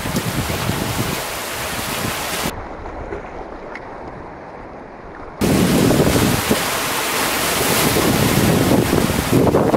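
Sea waves washing over shore rocks, with wind buffeting the microphone. From about two and a half to five and a half seconds in, the surf is quieter and duller, then the louder wash and wind come back suddenly.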